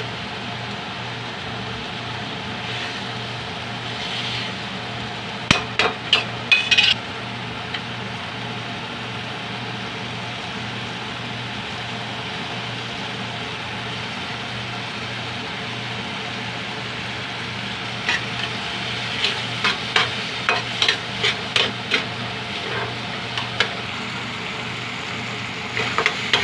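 Chopped tomatoes and onions sizzling in a metal pan while a slotted metal spatula stirs and mashes them, scraping and clacking against the pan. The spatula strikes come in a quick cluster about six seconds in and then repeatedly through the last eight seconds, as the tomatoes are crushed down.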